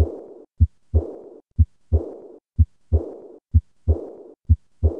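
Stethoscope recording of a heartbeat at about one beat a second, taken at the fourth left intercostal space. Each beat is a short low thump followed about a third of a second later by a second thump that runs straight into a rushing murmur fading away over about half a second. This is the pattern of a decrescendo early diastolic murmur.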